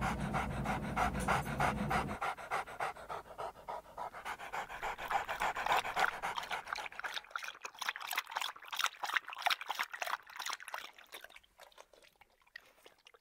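A Boston Terrier panting quickly and evenly, several breaths a second, the panting fading away near the end.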